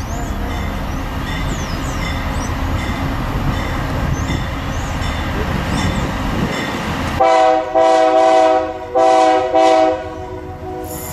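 Approaching freight train's lead GE diesel locomotive, with a steady low engine and rail rumble that is sounding its air horn about seven seconds in. There are four blasts, the first two nearly run together and the last one short.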